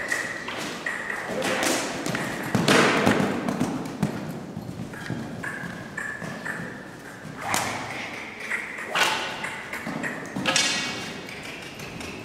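Loose horse cantering in an indoor riding hall: a series of echoing thuds and knocks, the loudest about three seconds in.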